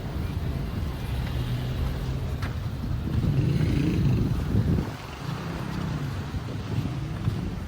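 A motor vehicle engine running close by, with a low hum that swells for a couple of seconds and then drops off abruptly about five seconds in.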